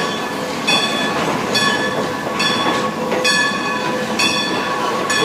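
Steam-hauled passenger train running along the track, heard from on board the coach: steady running noise with a ringing beat that repeats about every 0.8 seconds.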